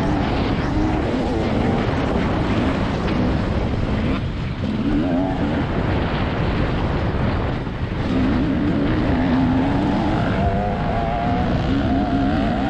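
TM 300 two-stroke motocross bike engine revving up and down under hard riding on a dirt track. The engine drops back briefly twice, about four and a half and eight seconds in, then pulls again.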